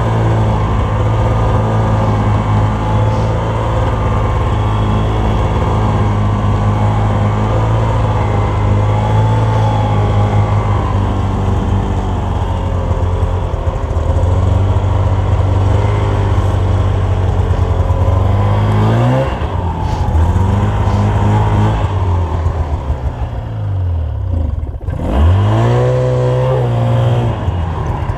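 Snowmobile engine running steadily at speed, then easing off and revving back up a couple of times in the last ten seconds or so.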